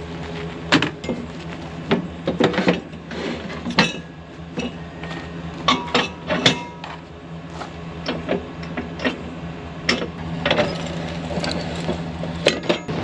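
Irregular metal clanks and knocks over a steady low hum, as of farm machinery or tools being handled.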